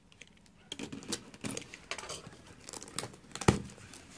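Packing tape on a cardboard box being slit with a utility knife and the flaps pulled open: irregular crinkling, tearing and scraping of tape and cardboard, with one sharp knock about three and a half seconds in.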